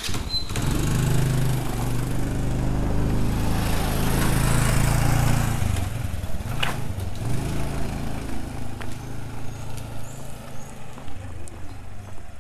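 A small engine running steadily, loudest over the first six seconds and then quieter, with a single sharp click a little past halfway.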